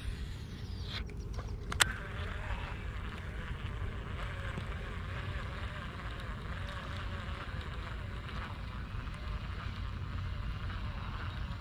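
Fishing reel being cranked in a slow, steady retrieve, a faint even whirring, after a single sharp click about two seconds in. Low wind rumble on the microphone underneath.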